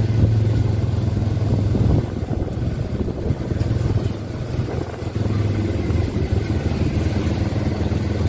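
Quad bike (ATV) engine running at low speed with a steady note, easing off for a few seconds in the middle and picking up again.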